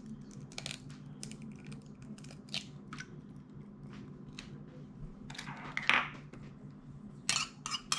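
Metal spoon tapping and cracking an egg's shell, a series of light clicks and small crackles as the shell breaks and is pulled apart, over a low steady hum. A louder scrape and rustle comes near the end as the shells are put down and kitchen things are handled.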